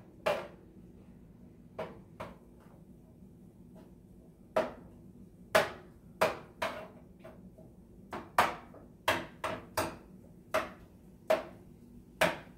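Cooking utensil knocking against a pan while a meat mixture is stirred: irregular sharp clacks, a few at first, then coming in quick runs of two or three a second from about four seconds in.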